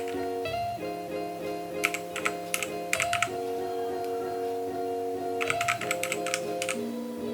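Background music with sustained chords, over two short runs of keystrokes on a Rexus Legionare MX9 TKL mechanical keyboard with linear red switches: one about two seconds in, another about five and a half seconds in.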